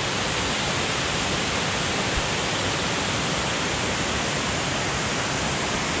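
Waterfall rushing, a steady, even wash of falling water with no change.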